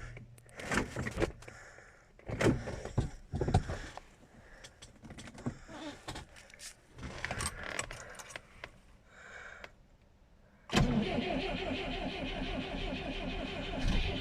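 Scattered clunks and rattles, then from about eleven seconds in a Moskvich 412's UZAM inline-four is cranked by its starter motor in hard frost, a steady churning that does not catch into a run. It is a cold-start attempt on a car that has been standing.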